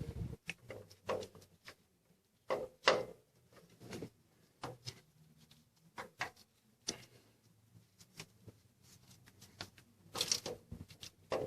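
Irregular clicks and knocks of tools and engine parts being handled during the work, with louder knocks about 3 s and 10 s in.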